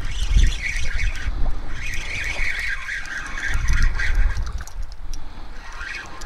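Gusty wind buffeting the microphone, an uneven low rumble that swells and eases, with a higher chattering hiss through the first three seconds or so.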